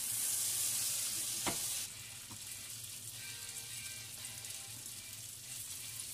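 Hot oil sizzling in a frying pan, loud for about two seconds and then dropping suddenly to a quieter, steady sizzle as raw meatballs are laid into the fat. There is a single light knock about one and a half seconds in.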